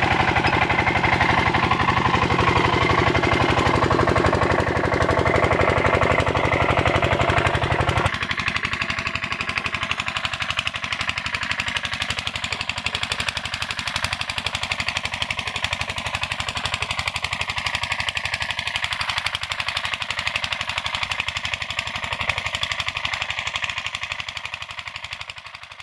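Single-cylinder 8 hp diesel engine driving an irrigation water pump, running steadily with a fast, even knocking beat. About eight seconds in it becomes quieter and thinner as it is heard from farther off, and it fades out near the end.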